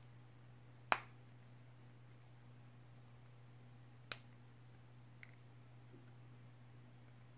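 Hard plastic Playmobil parts snapped onto a figure's head: two sharp clicks about three seconds apart, the first the loudest, then a faint tick, over a low steady hum.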